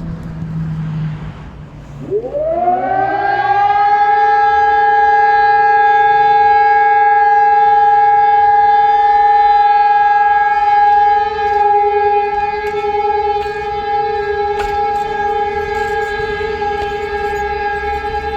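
Civil defence siren sounding for a test. About two seconds in its tone rises quickly, then holds at one steady, loud pitch.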